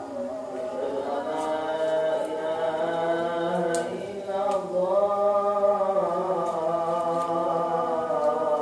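Islamic chanting from a mosque loudspeaker: long, held melodic notes that glide slowly from one pitch to the next, growing louder after the first second. A couple of light snaps of kangkung stems being broken by hand about four seconds in.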